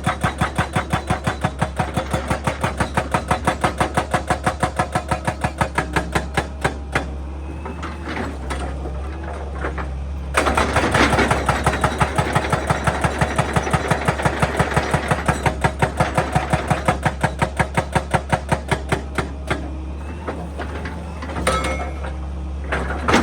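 Excavator-mounted hydraulic breaker hammering rock in rapid, even blows, several a second, over the steady hum of the excavator's diesel engine. The hammering stops for a few seconds about seven seconds in, then starts again, and pauses once more near the end.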